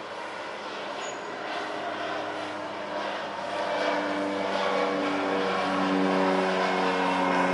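Cessna Grand Caravan's single turboprop engine and propeller droning as the plane passes low overhead, growing steadily louder, with a few steady tones in the hum that come up strongly in the second half.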